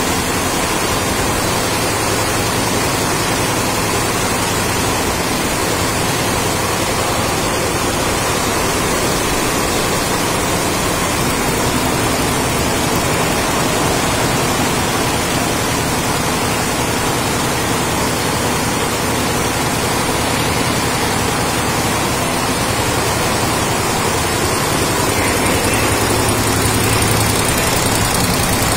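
Richpeace Dynamic multi-head computerized embroidery machine running, its many needle heads stitching lace at once. It makes a steady, loud mechanical noise with a low hum underneath.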